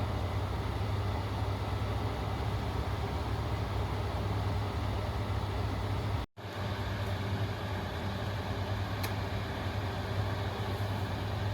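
A large vehicle's engine running steadily with a low hum, under broad outdoor noise. The sound cuts out abruptly for a moment about six seconds in, then resumes much the same.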